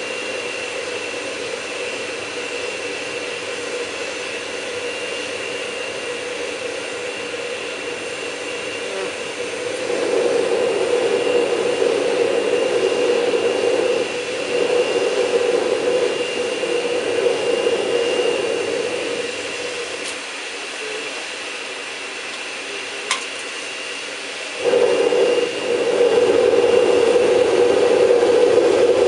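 Vacuum cleaner used as the air blower of a homemade gas forge, running steadily with a high whine over the rush of the gas burner. It grows louder about ten seconds in, falls back around twenty seconds, and swells again near the end, with a single click in between.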